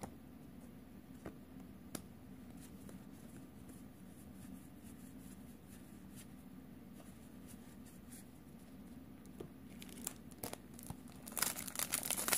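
Faint clicks of trading cards being handled and slid across one another over a low steady hum. Then, about a second before the end, the foil wrapper of a Magic: The Gathering booster pack crinkles loudly as it is torn open.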